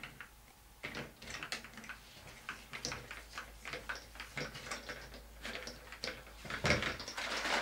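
Plastic hand-pump garden pressure sprayer being pumped up to pressure, its plunger clicking about two to three strokes a second.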